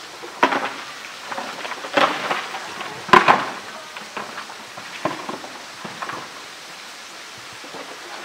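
A polar bear knocking and shoving a hollow roly-poly toy about on wet concrete: a run of irregular hollow knocks and scrapes, the loudest about three seconds in, tapering off after about six seconds.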